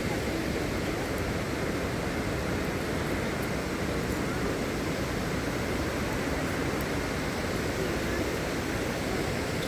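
Steady rushing roar of a waterfall, a continuous wash of falling water with no change in level.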